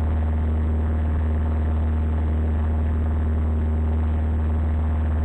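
Cessna 172's piston engine and propeller droning steadily, a low unchanging hum heard through the cockpit intercom.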